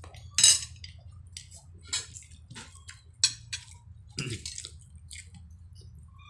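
Close-up wet eating sounds: chewing and lip smacks, a run of short clicks and squishes, with louder smacks about half a second in and just after three seconds.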